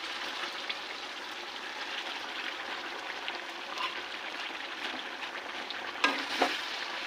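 Food sizzling steadily in hot oil in a pan, with small crackles throughout and a couple of utensil knocks near the end.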